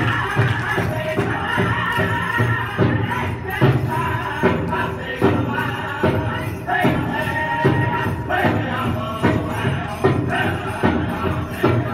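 Native American hoop dance song: a steady drumbeat, roughly one beat a second, under a group of chanting singers.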